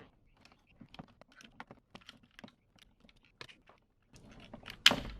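Scattered small plastic clicks and taps from hands working at a car door's trim panel and wiring connector, with a louder knock near the end.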